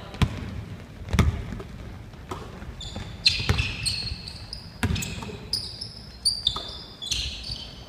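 Basketball bouncing on a hardwood gym floor, several separate thuds, with short high sneaker squeaks from players running and cutting on the court.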